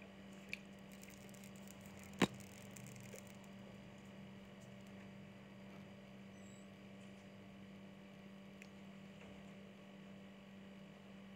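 Steady low electrical hum, with one sharp click about two seconds in and a few fainter ticks from handling the phone and pressing its side buttons.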